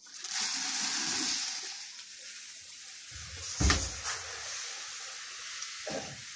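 Wheat grain being poured, a steady rushing hiss that is loudest in the first two seconds and then goes on more softly as grain is tipped into a storage bin. A loud single thump about three and a half seconds in.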